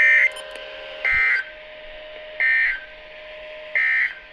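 EAS/SAME end-of-message data bursts: short, identical screeching digital chirps, four of them about a second and a third apart, marking the end of the weather alert broadcast.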